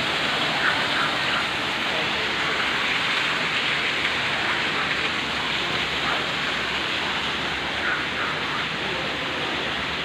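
Waterfall pouring over rocks into a pool: a steady, even rush of falling water.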